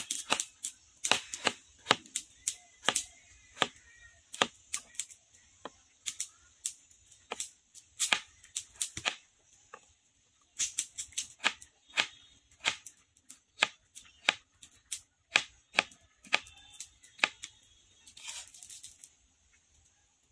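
A kitchen knife slicing a raw potato held in the hand into thin sticks: a quick run of sharp clicks, about two to three cuts a second, with a short pause about halfway through.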